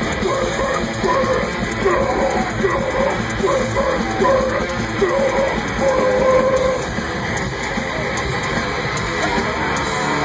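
Death metal band playing live at full volume: heavy distorted guitars and drums with shouted vocals.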